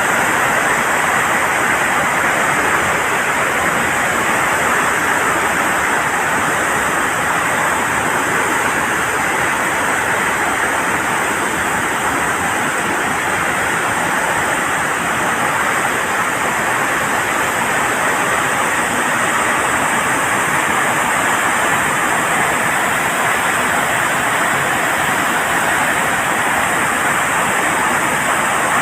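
Water rushing steadily through the open floodgates of a dam, released as high water during a flood alert.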